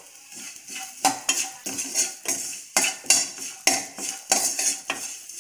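Metal spoon scraping and clinking against a stainless steel pan, stirring chopped chillies, garlic and spices frying in a little oil. Quick repeated strokes, about two to three a second, begin about a second in.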